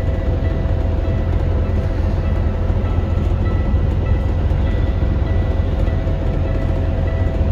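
Diesel engine of a 2012 Kenworth W900L semi truck idling, heard from inside the sleeper cab: a steady low rumble with faint steady tones above it.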